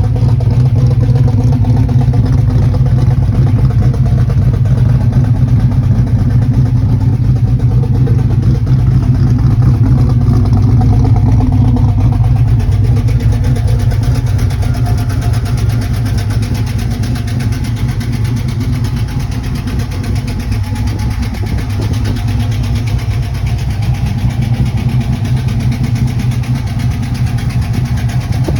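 Car engine idling steadily with a ticking in its running, which the owner suspects is either a lifter tick or an exhaust leak; the engine is not running its best.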